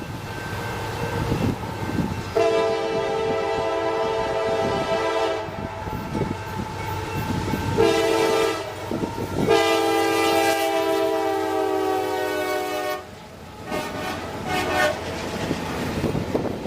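Diesel locomotive air horn sounding a chord: a long blast, a short one, then another long one, with a fainter brief blast near the end. Under it runs the rumble of a fast-moving freight train.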